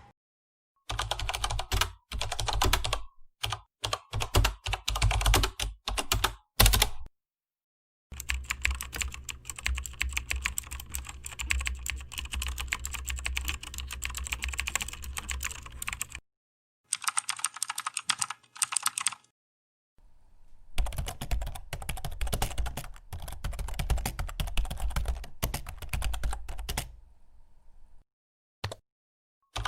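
Typing on a computer keyboard: rapid runs of key clicks in several separate stretches, each broken off by a sudden silence of about a second.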